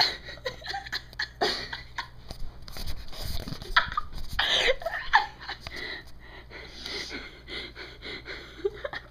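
A girl breathing hard in quick, noisy gasps and snorts with stifled laughter, close to hyperventilating after a long bout of burping.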